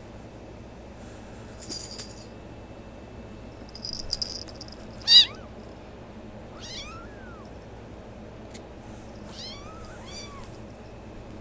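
Kittens meowing in high, short cries, about five in all, the loudest about five seconds in. Two brief rattling noises come before the first meow.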